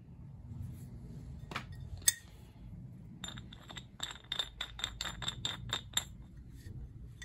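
A steel bolt with a rubber washer being screwed by hand into the threaded neck of an aluminium cream-charger bottle, stoppering it. It gives a couple of sharp metallic clinks, then a quick run of light ringing clicks, about five a second, as it turns.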